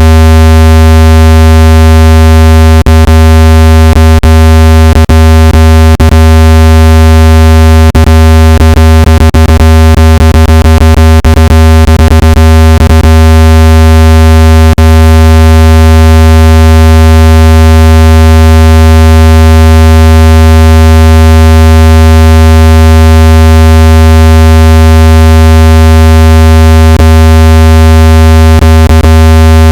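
Loud, steady, buzzy low synthesized tone from a water-eject sound, played to vibrate water out of a phone speaker. Scattered brief clicks cut through it, mostly in the first half and again near the end.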